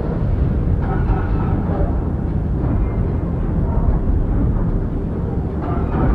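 Star Wars AT-AT walker cockpit interior ambience: a steady, heavy low rumble of the machine. Fainter mid-pitched sounds come through over it about a second in and again near the end.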